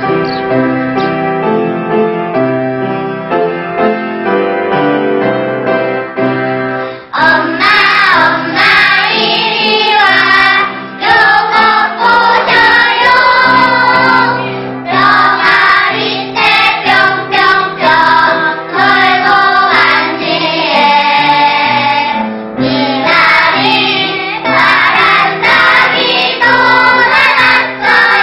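Music: an instrumental introduction of steady held notes, then a children's choir singing with accompaniment from about seven seconds in.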